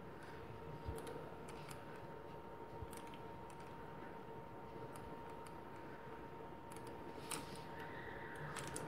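Faint scattered soft clicks and rustles of hands handling thick 6 mm cotton macramé cord while tying a square knot, over a faint steady high whine in the background.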